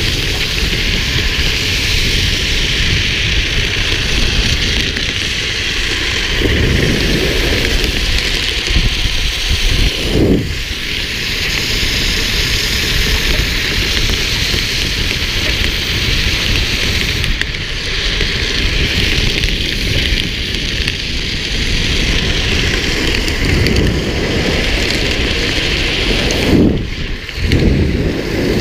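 Steady rushing wind and tyre hiss of a vehicle moving along a wet road, with a few brief whooshing swells, the strongest about ten seconds in and near the end.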